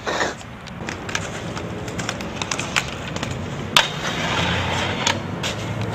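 Aggressive inline skate wheels rolling and clacking on concrete, with a sharp hard impact a little before four seconds in followed by about a second of wheel hiss. Traffic rumbles steadily underneath.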